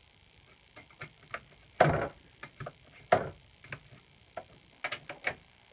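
A wrench tightening the bar nuts on a chainsaw's side cover: a series of irregular metal clicks and taps, with two louder knocks about two and three seconds in.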